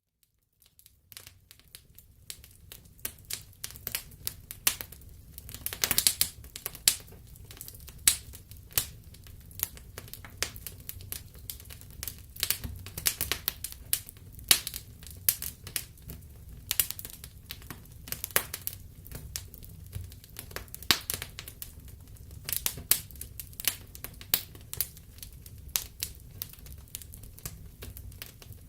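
Wood fire crackling: irregular sharp pops and snaps from burning logs over a low steady rumble of the flames, fading in during the first second or two.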